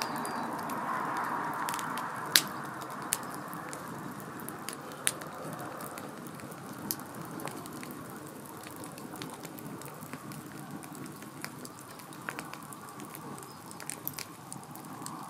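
Hardwood charcoal fire crackling, a steady hiss broken by scattered sharp pops, the loudest about two seconds in.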